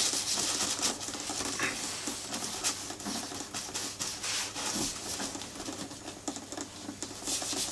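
Gloved hand rubbing leather cream into a leather case: continuous scuffing and rustling, with many small clicks and squeaks of the glove against the leather.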